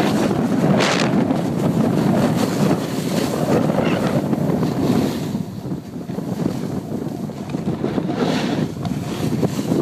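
Wind rushing over the microphone with a snowboard sliding and scraping across packed snow while riding downhill. There are brighter edge scrapes about a second in and again near the end.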